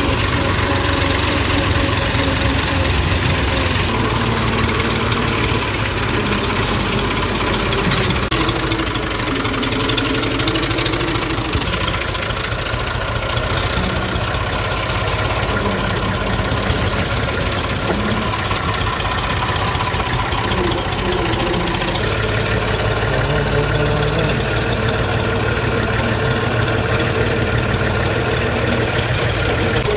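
Massey Ferguson 240 tractor's three-cylinder diesel engine running steadily as the tractor is driven along. Its note shifts slightly with the throttle a few times.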